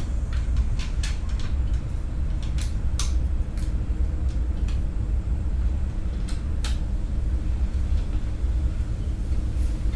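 A steady low background rumble with scattered light metallic clicks and taps from hand tools working on the scooter's fairing bolts.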